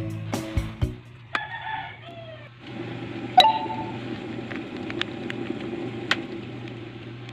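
A rooster crowing once, about a second in, the call dropping in pitch at its end. Then a steady low hum with a few sharp clicks.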